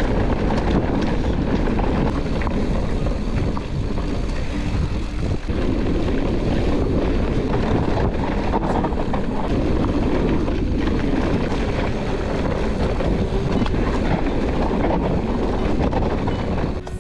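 Loud, steady rush of wind buffeting the microphone, mixed with the rumble of a mountain bike riding fast over rough ground; it drops away sharply near the end.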